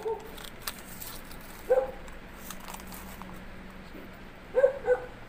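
Foil coffee sachet crinkling and a metal tablespoon scooping ground coffee from it, with faint clicks and crackles. A dog barks in the background: one short bark about two seconds in, then two more close together near the end, the loudest sounds.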